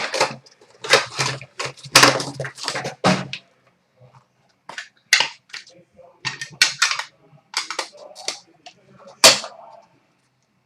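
A sealed box of hockey trading cards being unwrapped and opened by hand: crackling and tearing of its plastic wrap and cardboard, dense for the first few seconds, then scattered sharp snaps and crinkles.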